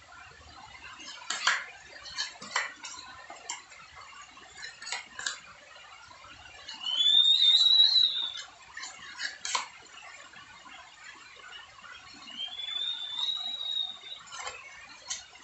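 Hand trowel scraping and tapping on a wall as putty is spread and smoothed, in short irregular strokes. Twice a high squeal, rising and then holding, lasts about a second and a half, the first one near the middle and loudest.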